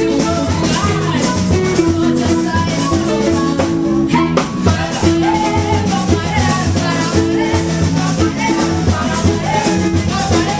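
Loud dance music with a steady beat and singing, played for dancing.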